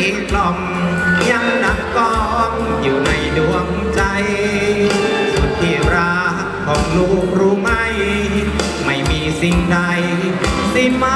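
A song with a sung lead vocal wavering in vibrato over a backing band with a steady drum beat.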